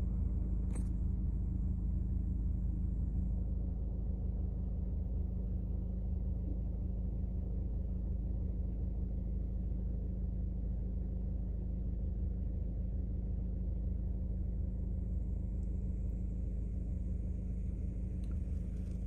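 Steady low rumble and hum of a car heard from inside its cabin, the engine idling while the car stands still.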